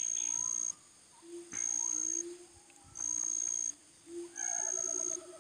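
Forest animal calls: a high, steady tone that switches on and off about every second and a half, over lower hooting and warbling calls.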